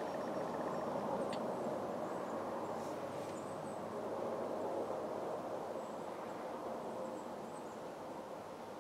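Outdoor background noise: a steady rushing hiss that slowly fades, with faint high chirps and a single click a little over a second in.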